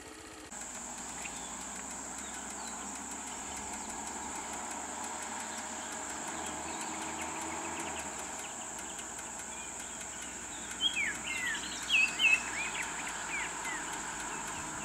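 Outdoor roadside ambience: a steady high-pitched drone with faint background hiss, and a bird calling in a quick run of short, falling chirps about three quarters of the way in.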